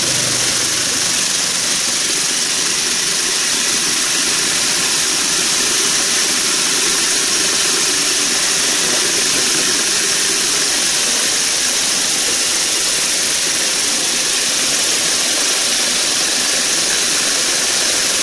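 Vibratory tumbler for polishing gemstones running, its bowl of small abrasive media pellets churning with a steady, high-pitched hiss.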